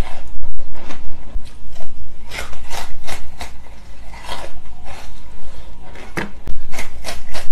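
Frozen carbonate ice being bitten off a stick and chewed, a run of loud crunches and crackles, a little quieter through the middle and loud again near the end.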